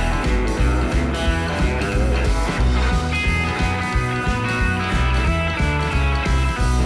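Background music: a rock tune with electric guitar over a steady bass and beat.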